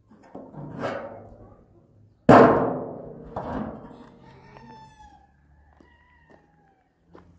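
A sudden loud knock about two seconds in, then a faint drawn-out animal call in the second half.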